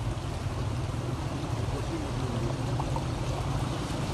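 Floodwater rushing and splashing along a flooded street, recorded on a phone, with a steady low rumble underneath.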